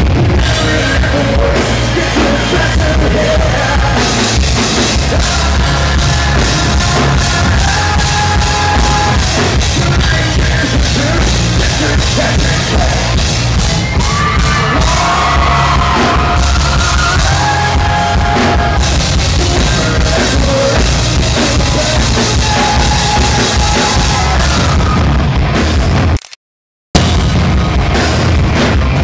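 Live rock band playing loud: drums, bass and electric guitar under a male lead singer. The sound cuts out for under a second near the end.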